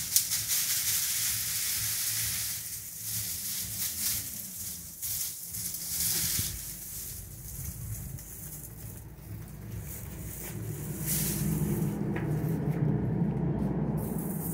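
Bundle of dried sesame plants shaken upside down, the dry stalks and seed pods rustling and rattling as the seeds are shaken out onto a tarp. A low rumble joins in over the last few seconds.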